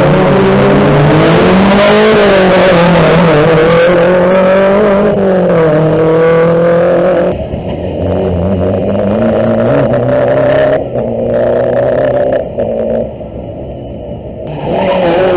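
Rally car engine at high revs, its pitch climbing and dropping as it accelerates and shifts gear. About seven seconds in it turns suddenly quieter and duller, then comes back loud near the end.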